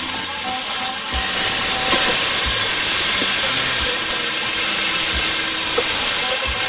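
Food frying in a hot pan, a loud steady sizzle and hiss.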